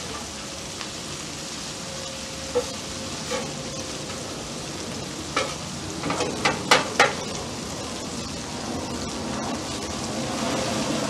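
Skirt steak and onions sizzling on a flat-top griddle while metal spatulas scrape and clack against the griddle surface. A quick run of four or five sharp clacks comes about six to seven seconds in.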